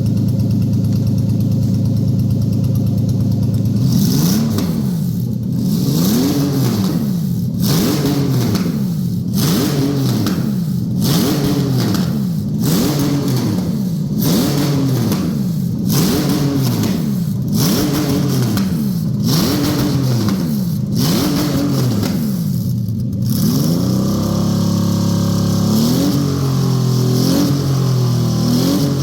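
Toyota 1GZ-FE 5.0-litre V12 running: a steady idle, then revved about eleven times in a row, each rev rising and falling back roughly every second and a half, before settling to idle again with a few lighter blips near the end.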